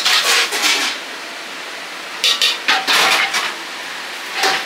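Metal kitchen utensils clanking and scraping against cookware in short bursts: a cluster at the start, another from about two to three and a half seconds in, and a single clank near the end, with brief metallic ringing.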